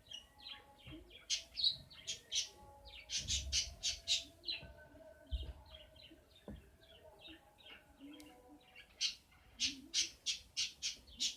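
A small bird chirping and squawking in quick runs of short, sharp calls, loudest in three clusters, with softer chirps between. A couple of low knocks come in the middle.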